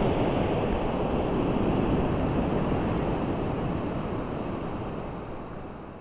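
A steady rushing noise that fades out gradually.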